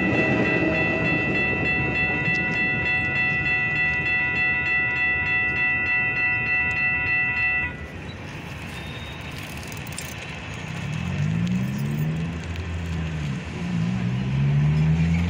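Railroad grade-crossing warning bell ringing steadily for about the first half, then cutting off abruptly as the crossing clears. Near the end, car engines rise in pitch as they accelerate away across the tracks.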